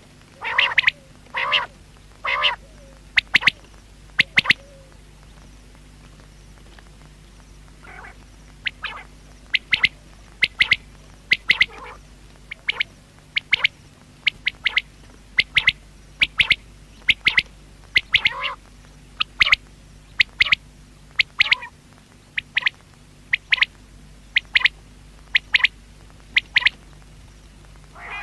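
Common quail calling: a long run of short, sharp calls repeating about once a second, fuller and louder in the first few seconds, then a pause of a few seconds before they resume. A faint steady hum runs underneath.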